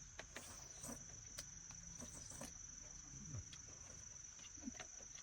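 Crickets chirring in a steady high drone, with scattered light clicks and taps.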